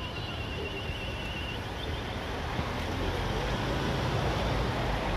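Wind blowing across the microphone outdoors: a steady rush with a low rumble that gets a little louder about halfway through, with faint distant voices from the field.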